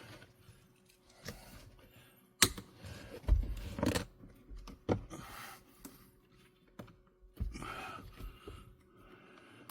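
Clicks, knocks and scuffing of an aftermarket accelerator pedal cover being pressed and worked onto the pedal by hand, its corners not yet snapped on. A sharp click comes about two and a half seconds in, with rubbing bursts around four and eight seconds.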